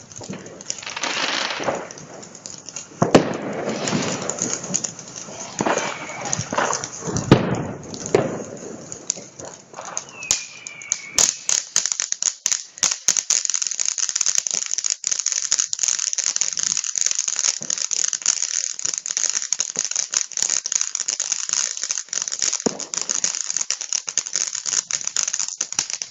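A fireworks cake firing: irregular launch thumps and bursts for the first ten seconds or so, then a dense, continuous crackling of many small reports for the rest.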